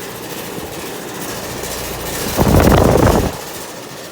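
Outdoor air-conditioner condensing unit running with a loud rattle that drowns out the compressor, louder for about a second halfway through.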